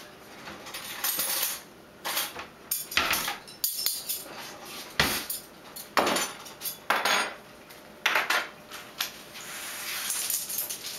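Metal spoons clattering against a kitchen countertop, in a series of clatters and sharp knocks mixed with longer rubbing and handling noises.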